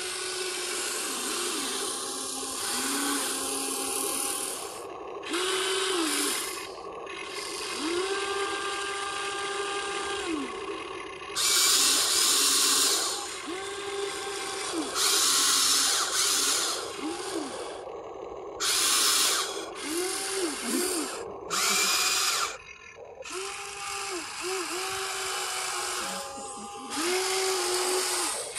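Small electric motors of a Huina 1593 RC excavator whining in short runs, each run's pitch rising and falling as the toy's drives start and stop. Several louder grinding spells of a second or two stand out.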